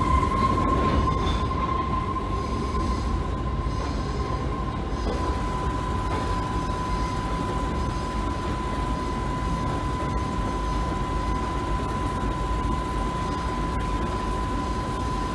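Aurizon freight train running over the rails with a low rumble and a steady, high-pitched wheel squeal.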